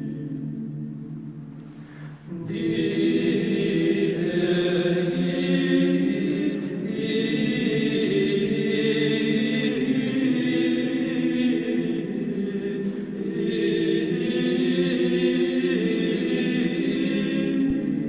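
Background music of a choir chanting in long held notes; one phrase dies away about two seconds in and a new one starts right after and carries on.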